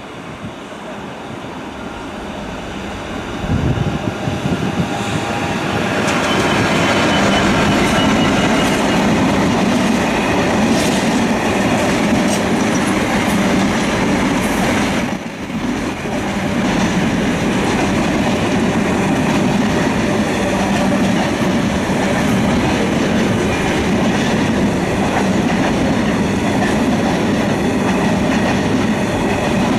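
Freight train hauled by a Class 66 diesel locomotive (EMD two-stroke diesel) passing through a station. The sound swells over the first few seconds as the locomotive comes by, then a long rake of intermodal container wagons rolls past, loud and steady, with a brief lull about fifteen seconds in.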